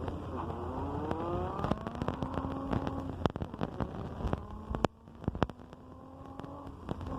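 Nissan 350Z's 3.5-litre V6 engine running, its revs climbing over about a second and a half and then holding steady, and later settling at a steady pitch again. Sharp clicks and knocks are heard throughout.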